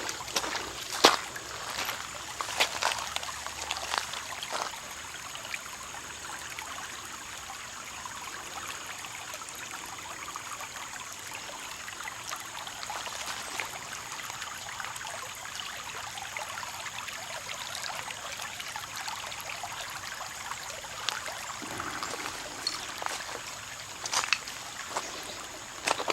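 Shallow creek water trickling steadily over rocks, with a few sharp clicks and knocks in the first few seconds and again near the end.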